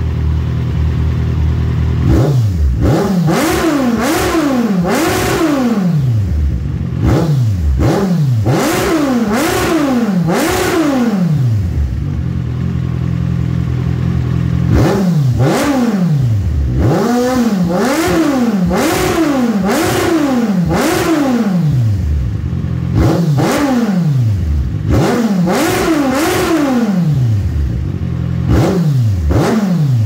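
Kawasaki Ninja 1000SX inline-four through a Black Widow carbon exhaust with cat delete, loud, idling and then blipped in several bursts of short throttle revs, each a quick rise and fall in pitch. It drops back to idle between bursts, and the revs are kept fairly low.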